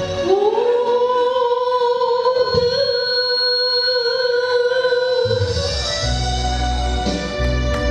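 A song with a singer holding one long note for about five seconds, after which the bass and the rest of the accompaniment come back in.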